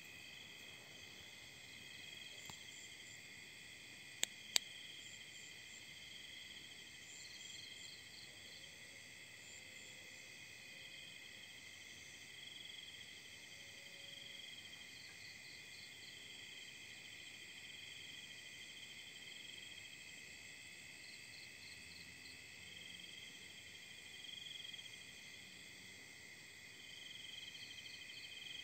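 Night insect chorus: crickets trilling steadily, with short pulsed chirps repeating higher up every second or two. About four seconds in come two sharp clicks, a fraction of a second apart.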